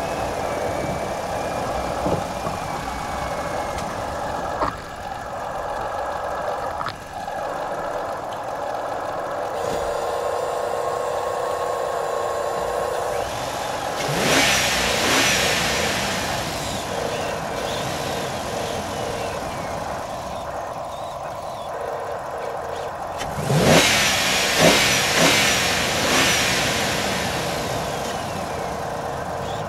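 Radio-controlled Huina 1593 excavators and a model dump truck working in gravel: a steady mechanical hum and whine of their motors and gears. There are two louder rushes of noise, midway and again about ten seconds later.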